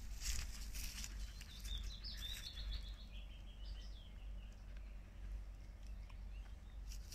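A songbird singing one phrase of quick notes that step down in pitch, about three seconds long, starting a second and a half in. Brief rustles near the start, over a steady low rumble of wind on the microphone.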